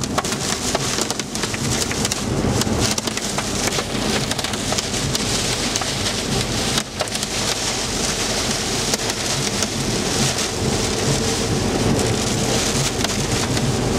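Heavy rain from a tornadic thunderstorm hitting the windshield and roof of a car, heard from inside the cabin as a loud, dense, steady hiss.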